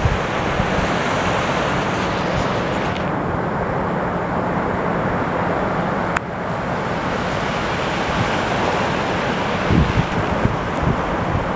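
Ocean surf with wind buffeting the microphone, under a faint steady low hum; a sharp click about six seconds in.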